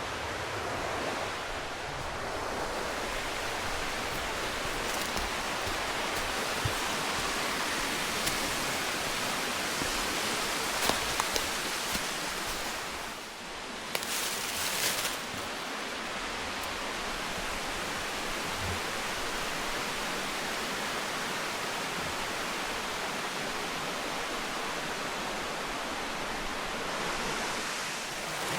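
Mountain creek rushing steadily over rocks, with a brief dip and a few faint clicks about halfway through.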